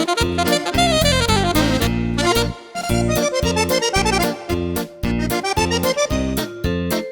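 Background music: a fast melody over a steady bouncing beat, with a falling run about a second in and a short break near the middle.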